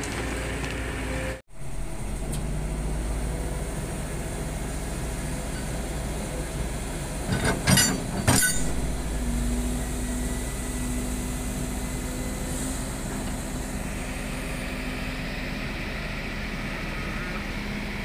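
Diesel engine of a Volvo crawler excavator running steadily under load, with a steady hum over it and a short cluster of metallic clanks about eight seconds in. The sound cuts out briefly about a second and a half in.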